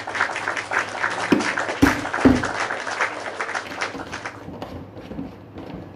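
Cooking oil poured from a bottle into a nonstick frying pan: a steady, crackly splashing pour that tapers off after about four seconds. Two low knocks come a couple of seconds in.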